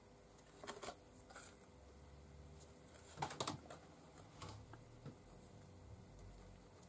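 Near silence with a few faint, scattered light clicks and taps from painting tools being handled. The loudest cluster comes a little past three seconds in.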